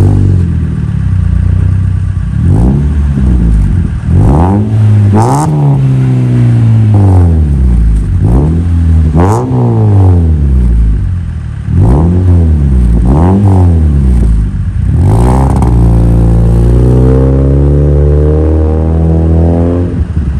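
Mazda CX-7's four-cylinder engine revved repeatedly from idle through a tuned exhaust (factory rear muffler removed, a straight-through resonator and an Akrapovič tip): about ten short blips rising and falling in pitch, then a longer held rev that drops back near the end.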